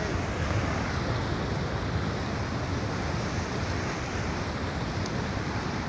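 Steady rush of a muddy flash flood pouring down a mountain stream bed: a dense, even noise that is heaviest in the low end and does not let up.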